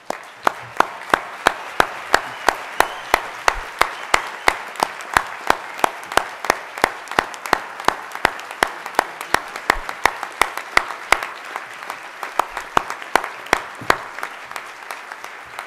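Audience applauding, with one person's loud hand claps close to the microphone, sharp and evenly spaced at about three a second, over the wash of the crowd's clapping. The close claps grow weaker near the end.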